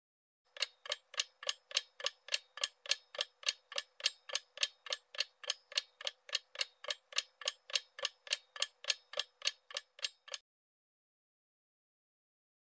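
Clock-ticking sound effect counting down a quiz timer: evenly spaced sharp ticks, a bit more than two a second, stopping suddenly about ten seconds in.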